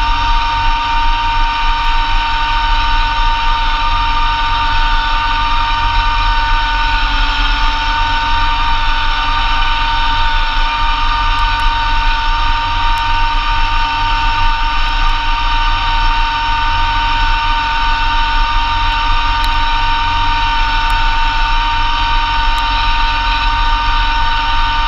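Massey Ferguson GC2300 compact tractor's three-cylinder diesel running steadily, driving a Blizzard B48 PTO snowblower, with a steady high whine over the engine's rumble.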